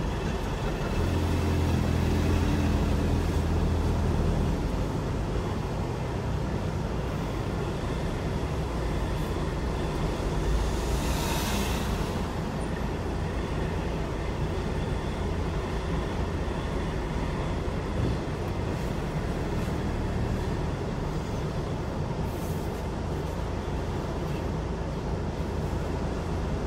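Mercedes-Benz Arocs heavy-haulage truck's diesel engine running close by, heard from inside a car's cabin. The engine note is stronger for a few seconds near the start, and a short hiss of air comes about eleven seconds in.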